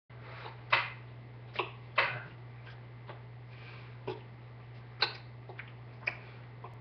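About a dozen sharp, irregular slaps and taps as the hands strike each other and the body while signing, over a steady low electrical hum.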